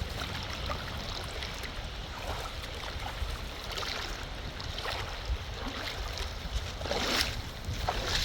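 Wind rumbling on the microphone over moving river water, with a few short swishing sounds.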